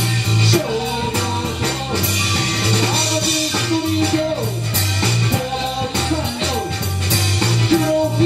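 Live rock band playing: a male voice singing over electric guitar, electric bass and a drum kit, with a steady beat.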